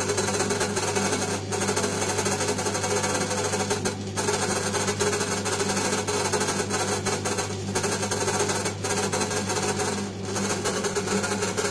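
Electric stand dough mixer running with its dough hook turning through bread dough in a steel bowl: a steady motor hum.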